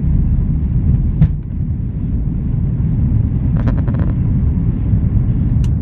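Steady low rumble of engine and airflow noise inside an airliner cabin on its descent toward landing, with a few faint clicks.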